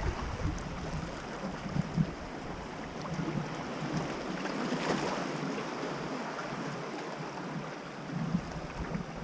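Sea waves washing against a rocky shore, with one louder surge of wash about five seconds in. Light wind buffets the microphone now and then.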